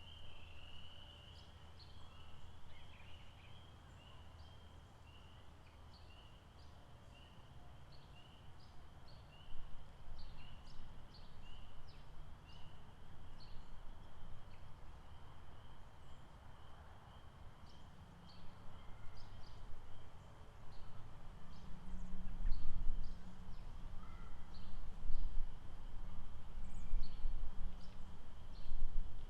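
A lakeside chorus of frogs calling: many short, high chirps repeating over a steady high trill. Partway through, a low rumble comes up underneath and grows louder toward the end.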